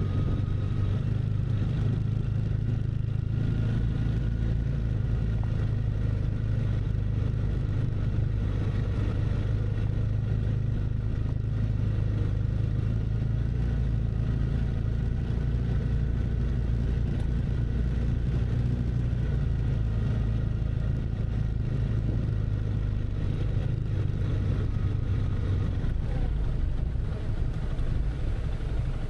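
A car's engine and road noise, a steady low running drone while driving with no change in pace.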